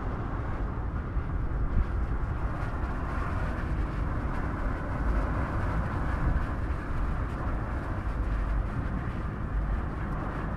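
Steady rumble of a car driving at speed, with wind and road noise and no revving or gear changes.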